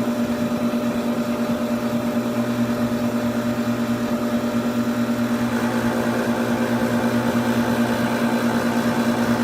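Air-conditioning compressor running with a steady hum and a fast, even pulse. About halfway through a higher tone joins in and it grows slightly louder.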